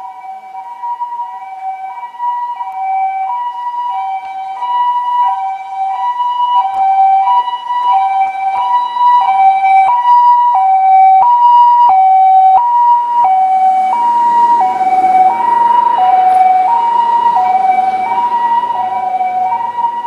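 Second-generation Toyota HiMedic ambulance's two-tone siren, alternating a high and a low note about every half second and growing louder as it approaches. Engine and road noise join in past the middle as it draws near, and the tones dip slightly in pitch as it goes by.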